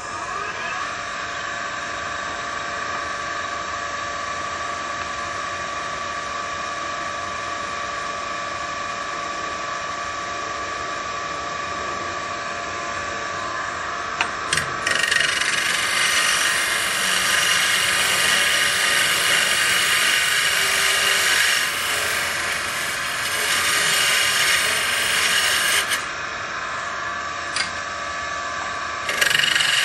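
Wood lathe running with a steady motor whine. About halfway through a turning tool starts cutting the spinning wooden stock, a louder scraping hiss as the diameter is trimmed down; the cutting stops briefly near the end, then starts again.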